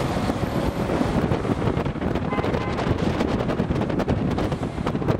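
Wind buffeting the microphone over a steady vehicle rumble, with scattered short knocks and rattles.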